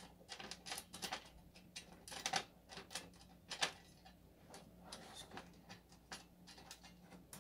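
Faint, irregular metallic clicks and ticks of a screw, washer and spacer being handled and turned down by fingers through a steel TV wall-mount bracket into the back of a flat-screen TV.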